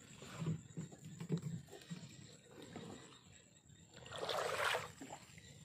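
Water sloshing and dipping around a small boat being moved through the water, with soft low knocks in the first two seconds. About four seconds in there is a louder rushing splash that lasts about a second.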